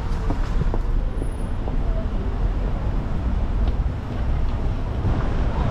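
City street ambience: a steady low rumble of road traffic from passing cars, with a few faint clicks and knocks.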